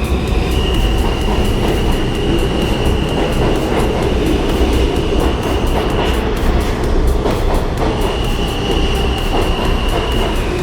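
New York City subway train running, a loud steady rumble with a high-pitched whine that cuts out about six seconds in and comes back about two seconds later.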